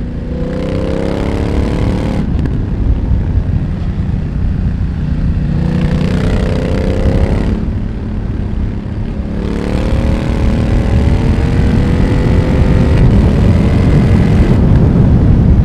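BMW F900R's parallel-twin engine through a Mivv X1-M exhaust, accelerating hard in several pulls. The revs climb steadily and break off sharply at each gear change or throttle lift.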